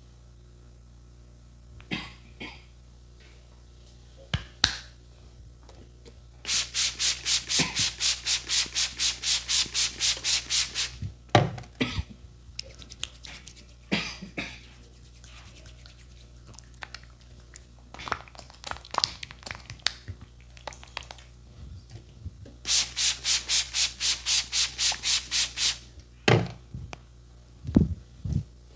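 A barber's hands rubbing briskly over skin and hair in a massage. There are two runs of fast, even strokes, about five a second, each lasting several seconds, with scattered short taps and knocks between them.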